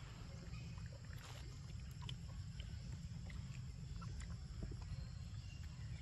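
Outdoor ambience: a steady low rumble with scattered faint clicks and ticks.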